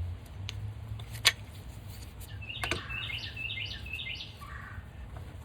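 A sharp metallic clink about a second in and a lighter one near three seconds, from the steel driver pieces of a bearing install kit being handled, then a bird outside chirping about five times in quick succession.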